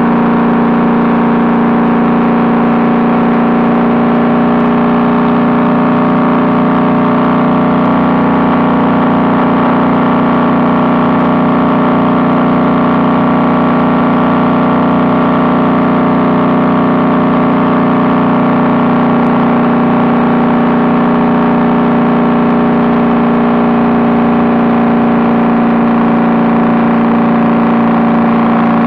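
Honda Valkyrie's flat-six engine running through Cobra six-into-six exhaust pipes, holding a steady note at an even cruising speed.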